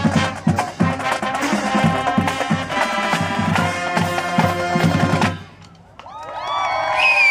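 Marching band playing, brass over a driving drum line, cutting off sharply about five seconds in. Moments later a crowd starts cheering and whooping.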